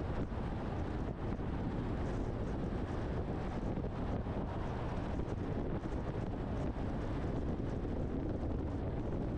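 Steady engine, tyre and wind noise of a truck driving along the road.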